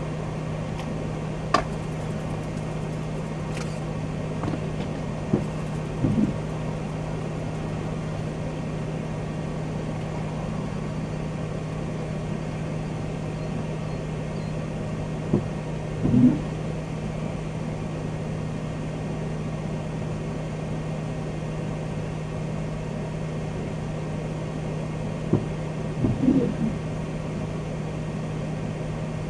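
Steady low hum of a vehicle heard from inside the cabin, with a windshield wiper making a sweep about every ten seconds. Each sweep starts with a sharp click followed by a short swish.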